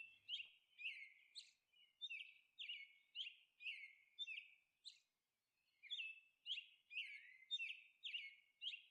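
Faint bird chirps: short falling peeps, about two a second, with a brief pause midway.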